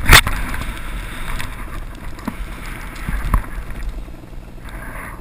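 Snowboard sliding and scraping over packed snow, with wind rushing over a helmet-mounted action-camera microphone. A sharp knock sounds right at the start, a few lighter knocks follow, and a brief hiss of snow spray comes near the end.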